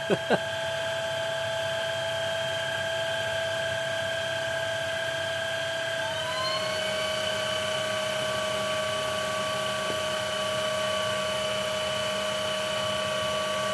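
VacLife VL732 cordless stick vacuum running on high, its brushless motor and brush roll making a steady whine through the cleaner head as airflow is drawn through the test rig. About six seconds in the pitch shifts: a new higher tone glides up and settles while the main tone drops slightly.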